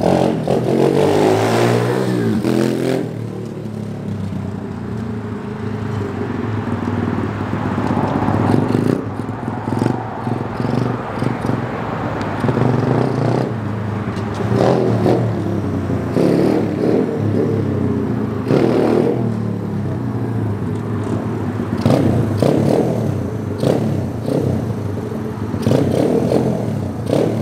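SSR 125cc big-wheel pit bike's single-cylinder four-stroke engine running and revving, with repeated short bursts of throttle as the clutch is popped for clutch-up wheelies. Rising pitch as it accelerates near the start.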